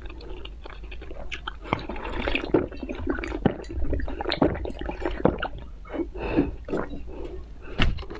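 Close-miked slurping and swallowing of green jelly sucked from a glass cup: an irregular run of wet sucks, squelches and gulps, with one sharp click near the end.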